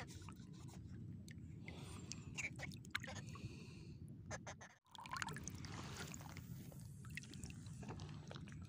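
Low, steady sloshing of shallow sea water, with scattered light clicks and taps as a hooked fish and the spinning-reel tackle are handled. The sound drops out for a moment just before five seconds in.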